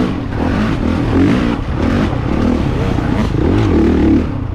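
Honda CRF450RX's 450 cc four-stroke single-cylinder engine revving up and down as the throttle is opened and closed, the pitch rising and falling several times.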